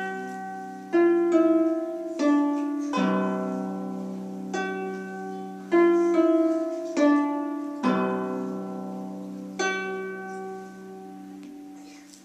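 Lever harp played solo: plucked notes and chords, struck every second or so, each ringing on and slowly fading. The last chord comes about ten seconds in and dies away as the piece ends.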